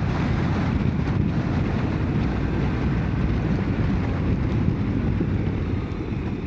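Steady wind rush on the microphone of a moving motorcycle, with the engine running underneath.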